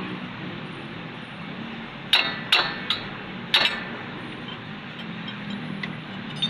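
Metal striking metal: four sharp clanks with a short ring, between about two and four seconds in.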